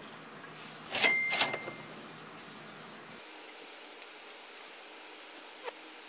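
Aerosol can of primer hissing as it is sprayed in bursts onto a bare steel bicycle frame. Two sharp metallic clinks come about a second in.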